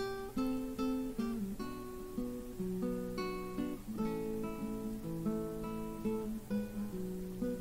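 Background music: an acoustic guitar playing a steady run of plucked notes.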